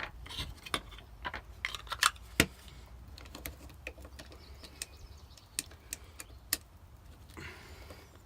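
9mm cartridges clicking and clinking as they are pressed one at a time into a nearly full KCI 33-round Glock magazine, its spring stiff near capacity. Scattered sharp metallic clicks, two louder ones about two seconds in.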